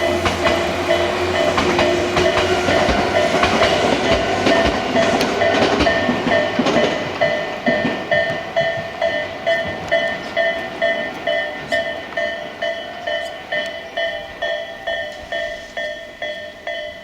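Japanese level-crossing warning bell ringing about twice a second while a Tobu Tojo Line electric train runs over the crossing, its wheels clacking over the rail joints. The train noise dies away about seven seconds in, and the bell keeps ringing.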